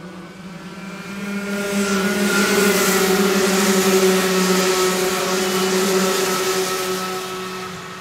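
A pack of Rotax 125 cc two-stroke kart engines running hard as the karts pass by. The sound swells about a second in, holds a steady high pitch through the middle, and fades away near the end.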